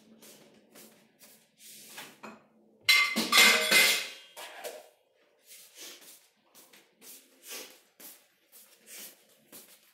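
Miniature schnauzer licking and nibbling at a plate on the table: a run of short wet clicks, a couple a second. About three seconds in comes one louder scraping clatter of about a second, as the plate is pushed on the table.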